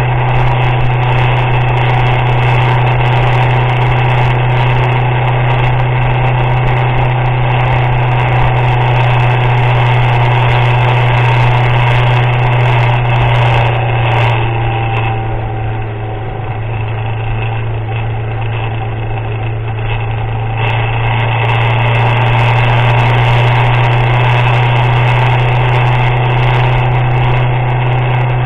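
Vehicle engine droning steadily on the move. It eases off and quiets a little about halfway through, then picks up again.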